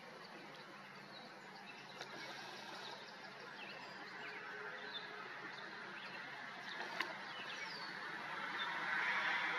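Faint scattered bird chirps over a steady outdoor noise that grows gradually louder toward the end.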